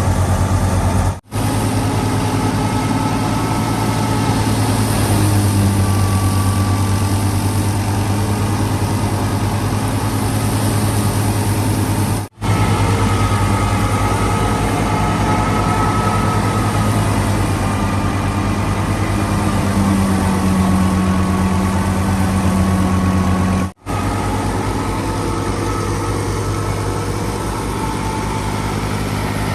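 Alghazi tractor's diesel engine running steadily while powering a wheat thresher, a constant low pulsing drone with the thresher's steady hum on top. The sound cuts out abruptly for an instant three times.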